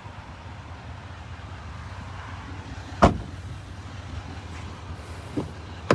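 A pickup truck's rear crew-cab door slammed shut about three seconds in, over a steady low rumble. A smaller knock and a sharp latch click come near the end.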